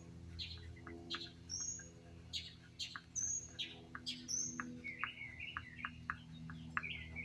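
Water-soluble marker squeaking and ticking on paper in short, quick strokes while a petition is written, the squeaks coming thicker in the last couple of seconds.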